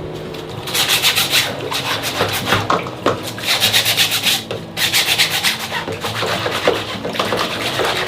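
A brush scrubbing a dirty air-conditioner filter in quick back-and-forth strokes, about five or six a second, in runs broken by two short pauses.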